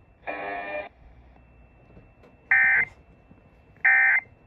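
Emergency Alert System digital data bursts, the end-of-message tones: short buzzy bursts of two alternating tones, repeating about every second and a half. The first, near the start, is fainter; the next two are loud.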